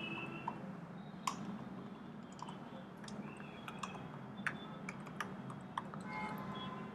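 Typing on a computer keyboard: irregular key clicks as a short phrase is typed.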